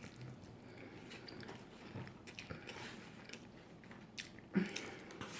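A person chewing food close to the microphone: quiet wet mouth sounds and small smacks, with a slightly louder smack about four and a half seconds in.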